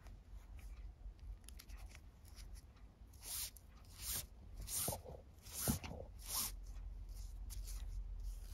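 Nylon paracord rustling and swishing as it is pulled through a plastic buckle, several short swishes in the middle with a couple of light knocks.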